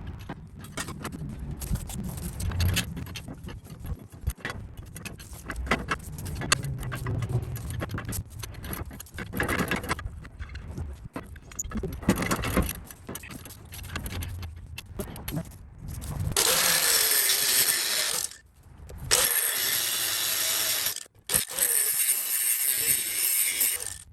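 Metal tools clinking and clanking against the truck's front end, then a power cutting tool run in three steady bursts of about two seconds each, cutting through a part so the bracket can fit.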